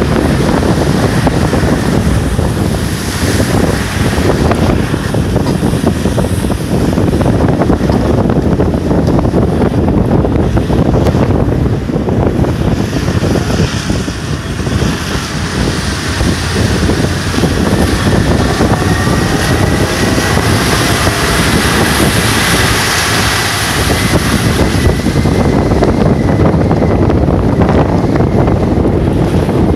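An all-terrain vehicle on low-pressure tyres drives steadily under heavy wind buffeting on the microphone. A faint steady whine joins in past the middle.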